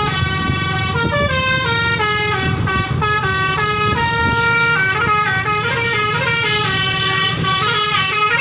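Bus telolet basuri musical horn playing a fast melody of stepping notes, one note after another without a break, over a low rumble.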